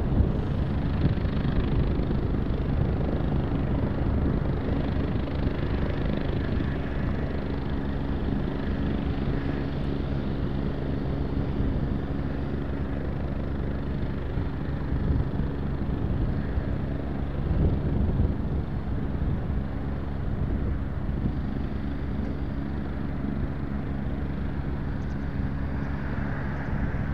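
Jet engines of a Boeing 787-8 (General Electric GEnx-1B) running at idle thrust as the airliner taxis and lines up on the runway: a steady low hum. Wind rumbles on the microphone.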